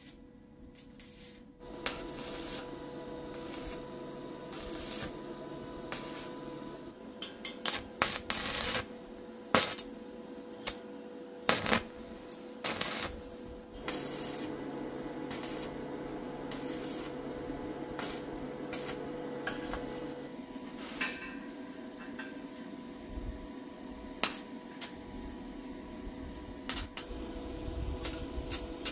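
Stick (arc) welding on square steel tubing: a steady electrical hum, with the arc crackling and spitting in two longer runs and sharp clicks and taps between them.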